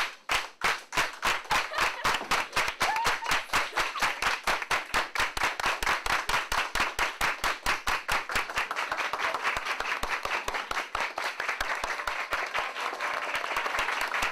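A class of people clapping their hands together in time. The claps start at about three a second and speed up, until about two-thirds of the way through they run together into continuous applause.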